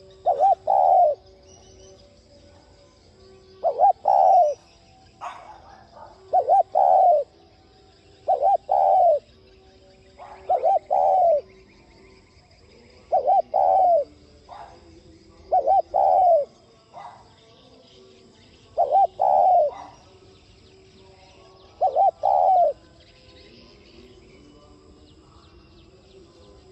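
Spotted dove cooing its song over and over, nine phrases about every two to three seconds, each two or three quick coos ending in a longer drawn-out one. It is the brisk 'thúc' style of song that keepers play to spur their own doves to call.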